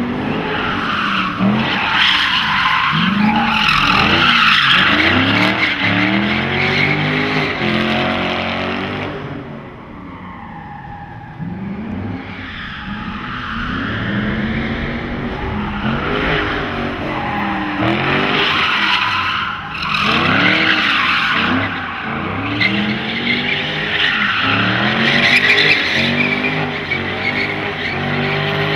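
A Ford Mustang's engine is revved up and down again and again as the car slides around cone turns, with long stretches of loud tire squeal. There is a quieter lull about ten seconds in.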